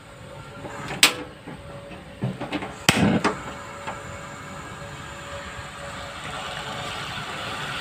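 Black spatula knocking and scraping against a stainless steel pot while stirring raw squid, with sharp clacks about one and three seconds in and a few lighter knocks between them. A steady hiss grows louder toward the end.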